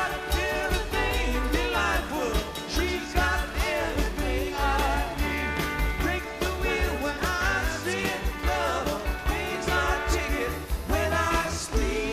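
Rock song with a singer over a steady drum beat and bass.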